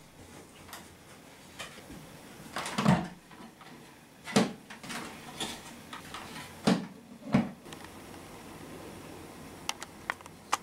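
Knocks and clunks as a wooden cabinet and a plastic canister vacuum cleaner are handled and the vacuum's lid is opened: four louder knocks with some rustling between them, then a few light clicks near the end.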